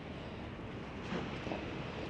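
Steady wash of rough sea in the harbour, with a brief swell of sound about a second in.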